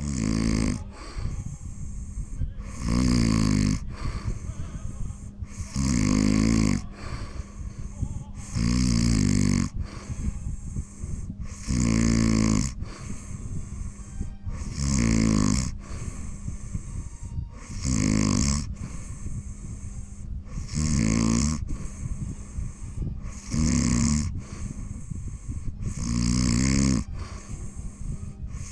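Snoring: a loud, pitched snore about every three seconds, each lasting under a second, with a softer hiss between snores.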